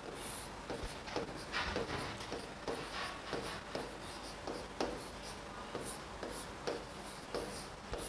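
A stylus tapping and scratching across the glass of an interactive display board as words are handwritten: a string of short, irregular ticks and scrapes, several a second.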